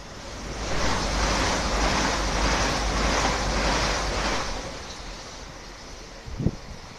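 Southeastern Class 395 Javelin electric multiple unit passing through a station at speed: a loud rushing of air and wheels on rail with a low rumble. It rises within the first second, holds for about four seconds and dies away as the train clears. A single short thump comes near the end.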